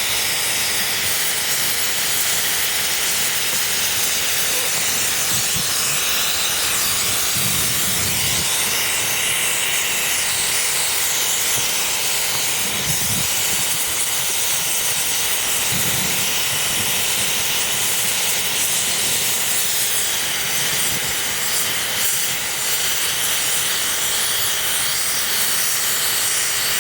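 Steady, loud hiss of air being forced into a two-stroke exhaust silencer while it burns, driving the combustion that burns out the unburnt oil and carbon clogging it.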